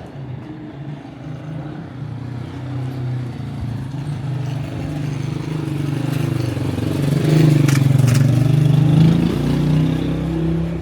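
A motor vehicle's engine running close by, growing louder to a peak about three-quarters of the way through, then easing off a little.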